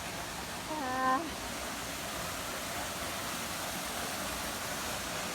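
Small waterfall rushing, a steady wash of falling water, with a brief voiced "mm"-like sound about a second in.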